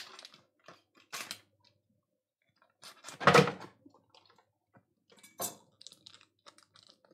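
Kitchen handling sounds: scattered light clicks, taps and rustles of things being picked up and set down on a counter, with one louder thud about three seconds in.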